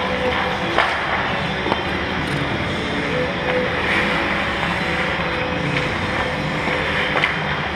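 Ice-hockey skate blades scraping and gliding on rink ice close by, with a few short sharp knocks from sticks and pucks.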